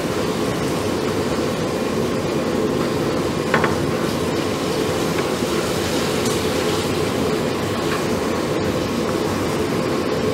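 A steady, low mechanical hum with a rumbling noise under it. A single short, light knock comes about three and a half seconds in.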